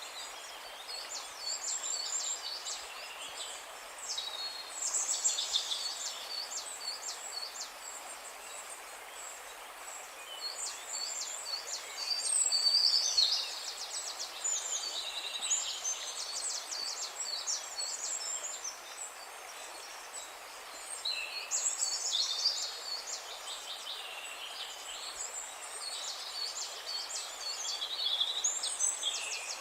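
Several songbirds chirping and trilling at once, a dense chorus of short high calls with louder flurries every several seconds, over a faint steady hiss.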